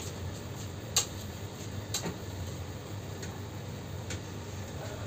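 A few sharp clicks, the loudest about a second in and another about two seconds in, over a steady low hum of room noise.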